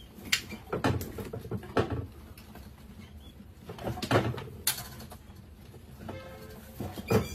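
A seesaw-flap rat trap's hinged wooden flaps knocking irregularly as rats tip through into the glass box, with rats scrabbling and pattering.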